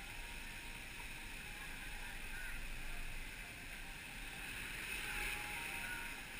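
Steady wash of flowing water.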